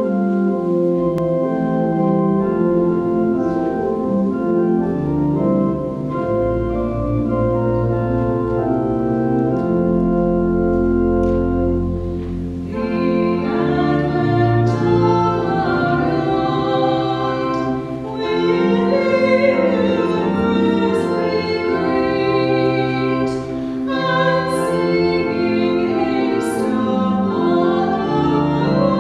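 Church organ playing slow, held chords with deep bass notes. About thirteen seconds in, a woman's solo voice begins singing with the organ accompanying.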